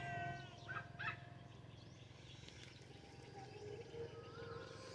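Faint bird chirps and short whistled calls, a few in the first second or so and one wavering whistle around four seconds in, over a soft steady low hum.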